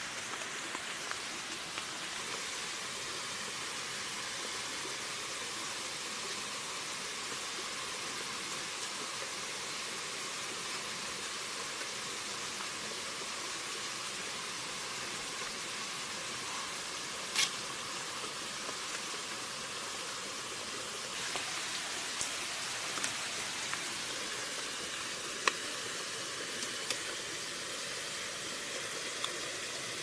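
Steady outdoor hiss with a few sharp knocks on top, the loudest about 17 seconds in and another about 25 seconds in, as a wooden pole is worked upright into a dug hole in the ground.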